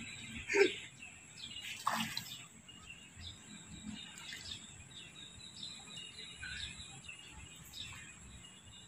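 Quiet outdoor background with scattered faint bird chirps, and two brief louder sounds, about half a second in and at about two seconds.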